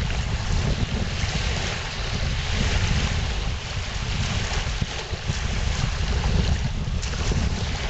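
Strong gusty wind buffeting the microphone, a continuous rumbling noise, over the hiss of choppy, wind-driven lake water.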